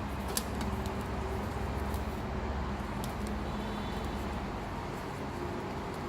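Steady low background hum with a few small clicks, the loudest just under half a second in.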